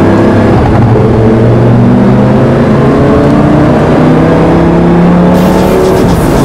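A sports car's engine running hard under acceleration, loud and steady, its note slowly climbing.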